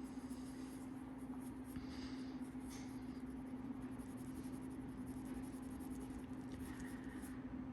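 A cloth rubbing polish into a watch's mineral crystal: faint, scratchy buffing strokes, with a steady low hum underneath.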